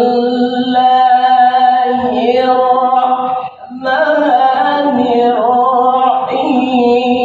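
Male qari reciting the Qur'an in melodic tilawah style, holding long, ornamented notes with small wavering turns. There is a brief pause for breath about three and a half seconds in.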